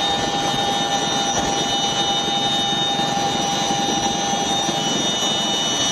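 Military helicopter turbine engine sound effect: a steady rushing with several steady high whining tones.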